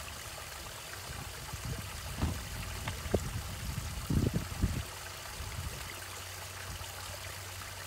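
Air bubbles from a pond aerator's air stones, running at its highest setting, rising and breaking at the water surface with a steady trickling fizz. A few low thumps come near the middle.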